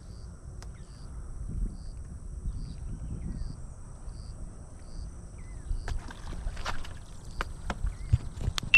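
Low rumble of wind on the microphone over quiet outdoor ambience; from about six seconds in, a run of sharp clicks and taps, the loudest right at the end.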